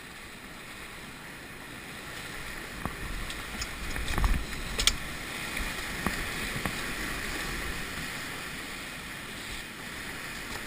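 Whitewater rapids rushing around a paddle raft, growing louder about two seconds in, with a few sharp knocks about four to five seconds in.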